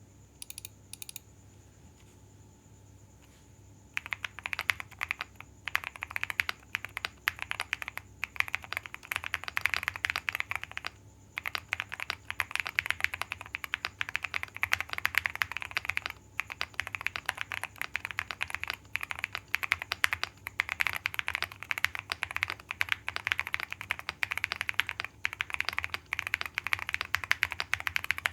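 Fast typing on a QK100 custom mechanical keyboard with lubed Boba U4T switches on a polycarbonate plate and JKDK Chemistry keycaps. After a few faint clicks, the keystrokes start about four seconds in and run on rapidly with a few short pauses.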